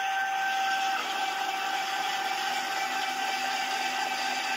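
Homemade CNC lathe running with its spindle turning: a steady whine of two tones over a hiss. The whine shifts slightly about a second in as the machine changes tool.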